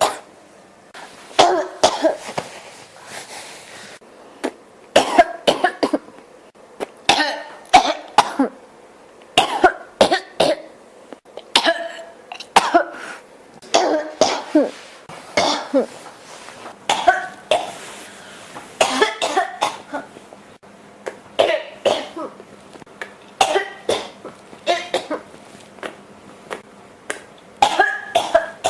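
A person in a coughing fit, coughing hard and repeatedly in short clusters of two or three coughs, a new cluster every second or two without letting up.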